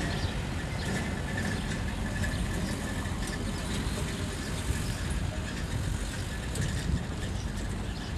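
Steady low rumble of distant city traffic and harbour noise, with a faint steady whine above it.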